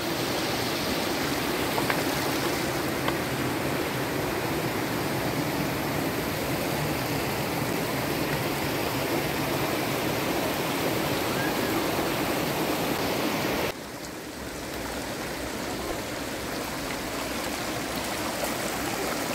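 Steady rushing water of a stream. It drops abruptly to a quieter level about fourteen seconds in, then slowly swells again.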